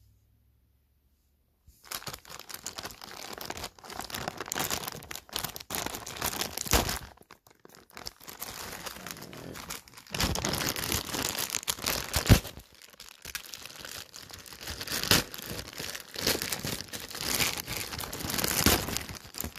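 Plastic shipping mailer bags crinkling and crackling as they are handled and torn open, starting about two seconds in, with dense sharp crackles and a few louder pops.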